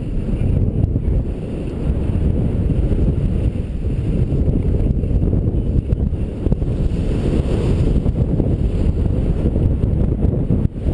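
Wind buffeting a helmet-mounted action camera's microphone during a downhill ski run, a continuous low rumble, with a lighter hiss of skis sliding over snow that swells about seven seconds in.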